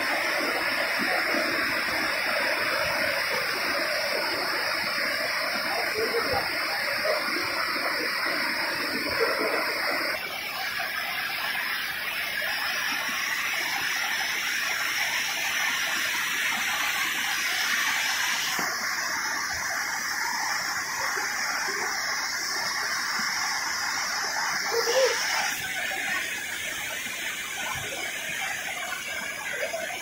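Grojogan Sewu waterfall: a steady rush of falling water and spray. The sound changes abruptly three times, about a third of the way in, past halfway and near the end.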